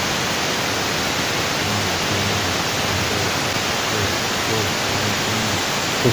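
Steady, loud rushing of flowing water, an even hiss that does not let up.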